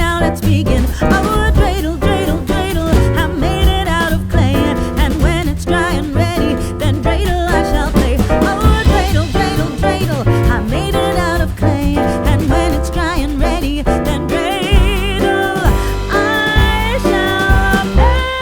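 Background music with vocals and a steady beat.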